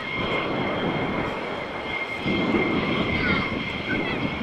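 Airbus A400M's four Europrop TP400-D6 turboprop engines and eight-bladed propellers droning overhead during a low display pass, with a steady high turbine whine over the propeller rumble that grows a little louder about two seconds in.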